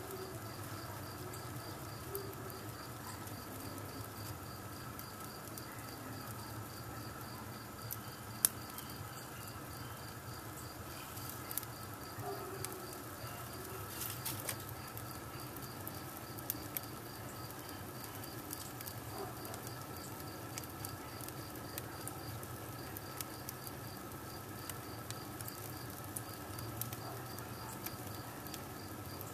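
Wood and paper fire crackling in an adobe fireplace as a small effigy burns, with scattered sharp pops, the loudest about eight seconds in. A steady, evenly repeating high chirping runs underneath.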